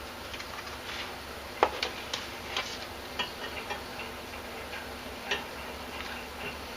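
A scatter of light, irregular clicks and taps, with one sharper knock about one and a half seconds in, over a steady low hum.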